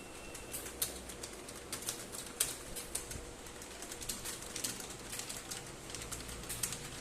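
Computer keyboard being typed on: irregular key clicks, several a second, some keystrokes sharper than others.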